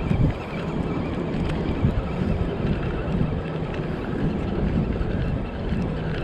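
Steady wind buffeting the microphone, a dense low rumble.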